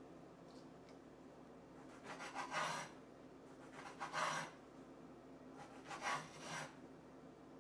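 Three short rasping scrapes, each under a second long, about two seconds apart, like a utensil or blade scraping in the kitchen.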